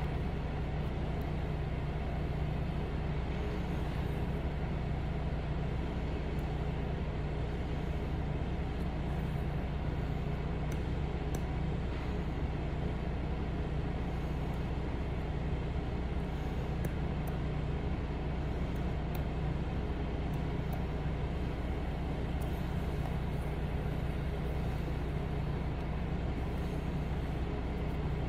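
HydraFacial machine's vacuum pump running with a steady low hum while its lymphatic handpiece draws suction on the skin.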